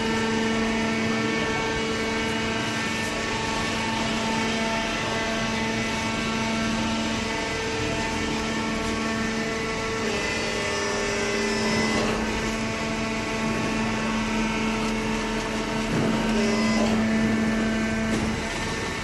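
Large hydraulic cardboard baler running: a steady machine hum from its motor and hydraulic pump over a noisy background, with the tone shifting slightly about ten seconds in and again near the end.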